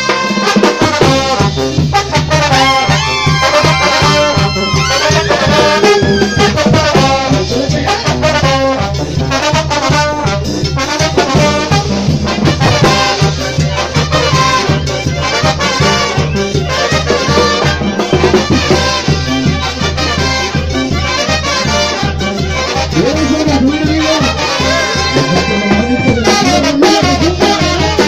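Carnival brass band playing live: trumpets and trombones carry the tune over a steady bass line and an even drum beat.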